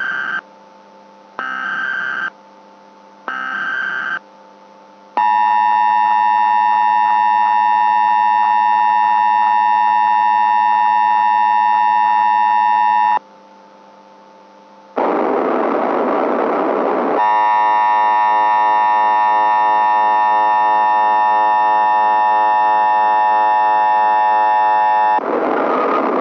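Mock Emergency Alert System alert: three one-second data bursts of the SAME header about a second apart, then a steady electronic attention tone lasting about eight seconds. After a short silence comes about two seconds of static-like noise and a second eight-second tone, with noise starting again near the end.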